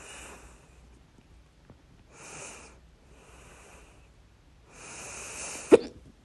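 A person's hiccups: several noisy breaths in and out, then one sharp, loud hiccup near the end.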